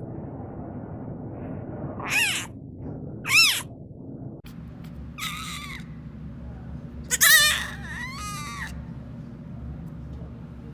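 A baby animal calling out with about five short, high-pitched cries, some with a wavering pitch, over a steady low hum.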